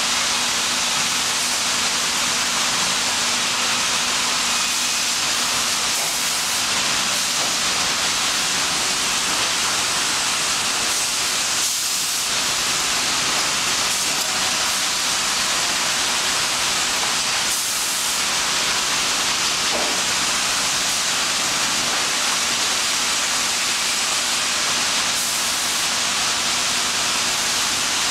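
Steady, loud hiss of air being drawn through a vacuum tube lifter as its suction pads hold and lift a heavy timber beam, with a faint low hum underneath.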